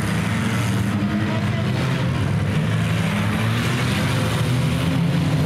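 Engines of several bonestock demolition derby cars revving at once, making a steady mass of engine noise whose pitch rises and falls.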